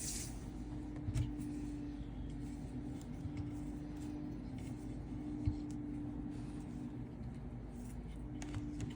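Faint scratching and a couple of light knocks from hand repair work on a rug edge, over a steady low hum.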